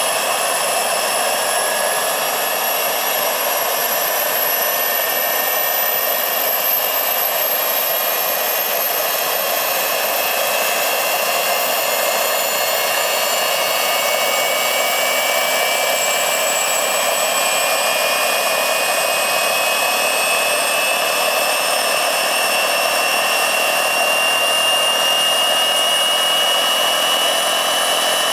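Turbine engine of a large scale-model Eurocopter EC-120 B Colibri RC helicopter running on the ground: a loud, steady high whine over a rushing hiss. The whine rises slowly and evenly in pitch as the turbine spools up to speed.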